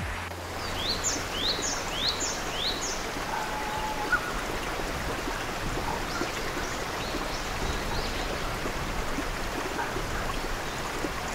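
A stream running over rocks, a steady rush of water. A bird gives a quick series of short chirps in the first few seconds, with fainter calls later.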